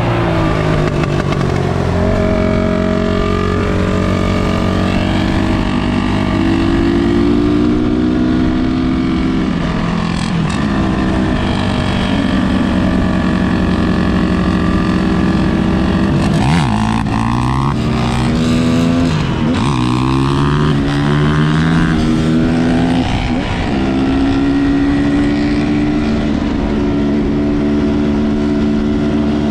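250cc enduro motorcycle engine running under way, revs climbing and dropping again and again as the rider works the throttle and shifts, with brief throttle-offs about 10, 17, 19 and 23 seconds in.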